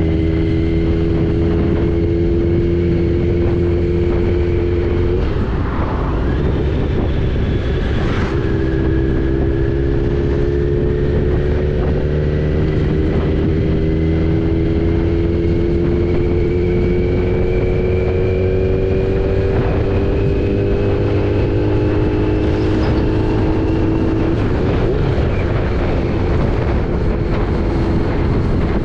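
Kawasaki Z900's inline-four engine running under way on the motorcycle, its note slowly rising in pitch as it gains speed, dropping back at gear changes about five to eight seconds in and again near the end, over steady wind rumble on the microphone.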